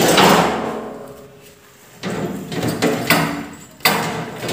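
Sheet-metal casing panels of a split air conditioner's outdoor unit clanking as they are lifted off. There are four knocks: one at the start and three more from about two seconds in, each ringing out metallically before it fades.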